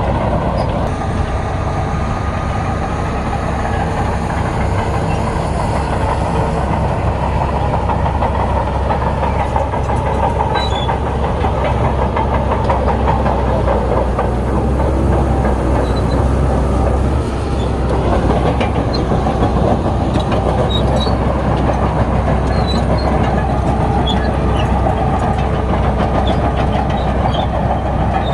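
Bulldozer's diesel engine running steadily while working, with a dense clatter running through it, which dips briefly about seventeen seconds in.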